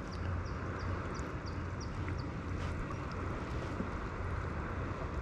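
A steady low engine hum, with a run of short high chirps about three a second that fades out about two seconds in.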